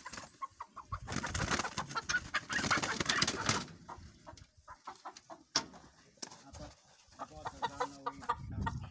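Kuroiler chickens clucking and squawking while being handled. About a second in comes a loud flurry of flapping wings that lasts two to three seconds. Shorter squawks follow near the end.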